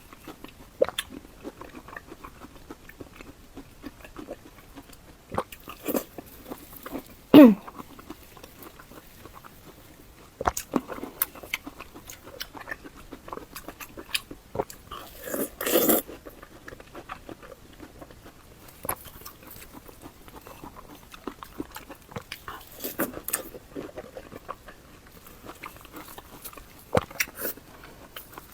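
Close-miked eating sounds of spicy bullfrog being eaten: chewing with scattered wet clicks and smacks, a louder sucking sound about seven seconds in and a noisy slurp about sixteen seconds in.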